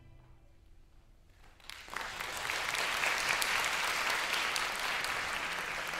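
Audience applauding, starting about a second and a half in after a brief hush at the end of a piece.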